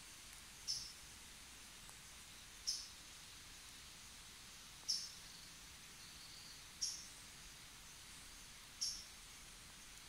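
A bird's short, high-pitched peep, repeated five times at an even pace about two seconds apart, over a faint steady hiss.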